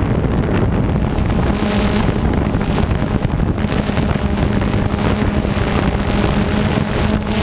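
Multirotor drone's electric motors and propellers humming steadily at one pitch, with wind buffeting the microphone.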